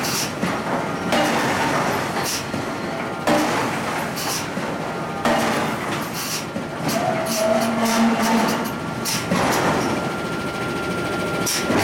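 Forge-shop din around hot steel ring forging: a steady machinery rumble with metal clanks and knocks every second or two, and brief metallic squeals.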